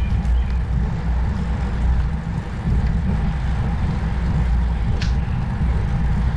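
Wind buffeting the microphone of a moving rider: a loud, irregular low rumble.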